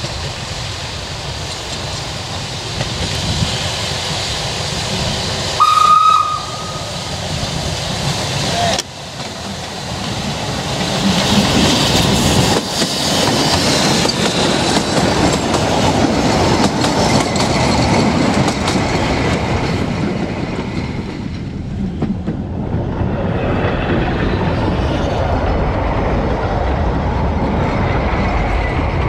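Narrow-gauge steam locomotive Palmerston approaching with its train. It gives one short whistle blast about six seconds in. Then comes the rumble and clatter of the narrow-gauge carriages' wheels as the train passes close by.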